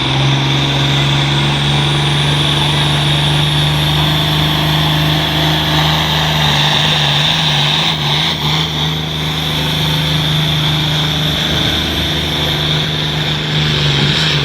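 International 1466 tractor's turbocharged 436 cubic inch six-cylinder diesel running hard at high, steady revs while pulling the weight sled down the track. A faint high whine rises over the first few seconds.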